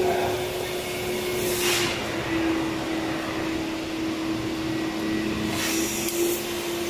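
Steady machine hum with one constant tone. Two brief hissing rushes come through it, about one and a half seconds in and again near the end.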